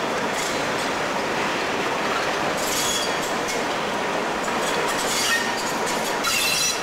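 Electric locomotive rolling slowly over the tracks with a steady rumble of wheels on rail, broken by brief high-pitched wheel squeals about three seconds in, again around five seconds and near the end.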